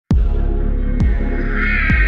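Electronic intro music: a deep beat about once a second over a steady low drone, with a higher wavering tone coming in about one and a half seconds in.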